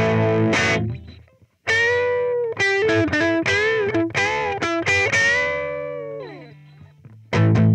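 Distorted electric guitar played through a guitar amplifier: chords cut off about a second in, a short pause, then a single-note lead phrase with string bends and vibrato, ending on a long note that fades before a chord is struck again near the end.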